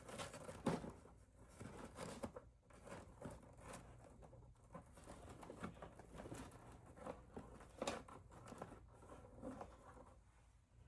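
Faint rustling and scattered light taps and clicks of hands handling craft materials, with a couple of slightly sharper clicks, one about a second in and one near eight seconds.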